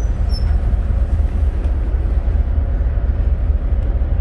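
Steady low rumble of a Freshwater class ferry's diesel engines and hull, heard from inside the passenger deck while the ferry is underway.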